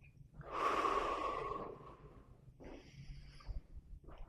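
A person taking deep breaths: one long, airy breath, then a shorter one about two and a half seconds in, breathing on instruction during a chiropractic stretch.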